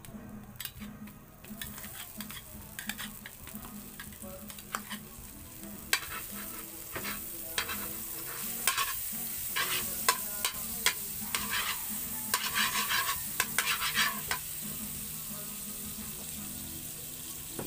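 Butter melting and sizzling in a hot wok while a metal spatula scrapes and clinks against the pan. The scraping strokes come thick and fast through the middle, then leave a steady sizzle near the end.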